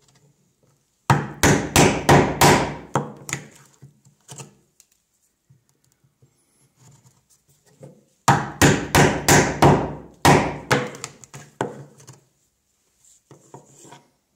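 Mallet driving a mortise chisel into white oak, chopping a 3/4-inch mortise: two quick runs of sharp blows, about three a second, with a few lighter taps between and near the end.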